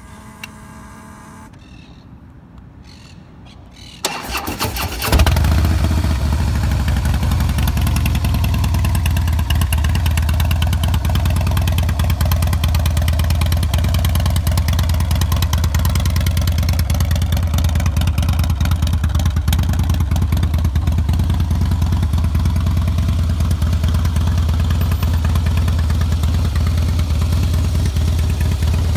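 A Harley-Davidson CVO Deluxe's V-twin engine is cranked on its electric starter about four seconds in and catches about a second later. It then idles steadily with a strong low beat.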